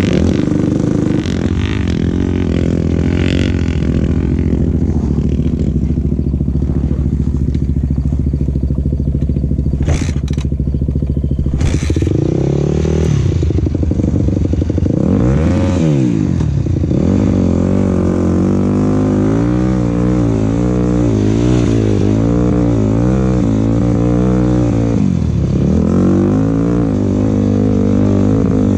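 Hybrid Yamaha YFZ250F quad's four-stroke engine running hard under the rider, held at steady high revs at first, then dropping and climbing in pitch several times as the throttle is eased and reopened, with another dip near the end. A few sharp clacks sound around ten seconds in.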